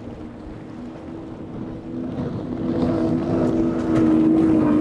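Quad Mercury 400R outboard engines on a Midnight Express center-console boat running at high speed, a steady engine drone that grows louder as the boat closes in and is loudest near the end, with a hiss of water over it.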